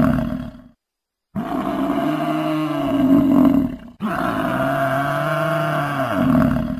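A looped roar sound effect: a long, growling animal roar on one steady low pitch that bends downward as it ends. It cuts out under a second in, goes silent for about half a second, then plays twice more, each time the same.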